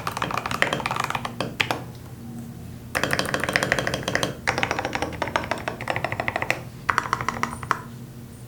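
Typing on an NCR80 mechanical keyboard with hand-lubed Drop Holy Panda X tactile switches, MT3 keycaps and a silicone-dampened case. Several runs of rapid keystrokes come with short pauses between them, and the last quick burst stops about a second before the end.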